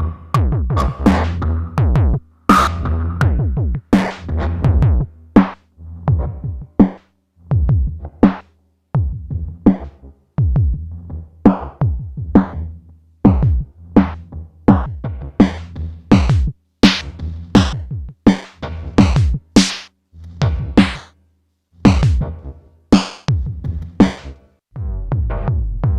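Electronic drum-machine percussion from a Eurorack module: a busy, uneven pattern of synthesized hits, many with quick downward pitch sweeps, over a low bass tone at times.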